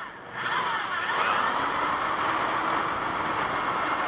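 Electric drill running and boring through a metal jar lid: after a brief dip it speeds up with a rising whine, runs steadily, then stops suddenly at the end.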